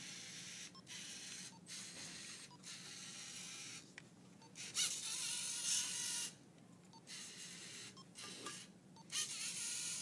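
Lego Mindstorms NXT robot's servo motors and gears whirring in short runs with brief stops between them, with a louder stretch about five seconds in.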